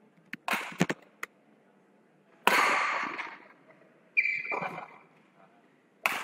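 Badminton rally: rackets striking the shuttlecock in sharp cracks with a short hall echo, a few in the first second and a half and one at about two and a half seconds. A brief shoe squeak on the court floor comes about four seconds in, and a hard smash lands near the end.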